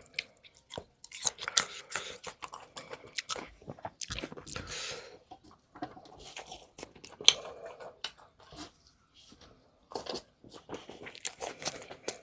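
A person chewing and biting food close to the microphone, with many irregular crunches and wet mouth sounds and a short pause about three-quarters of the way through.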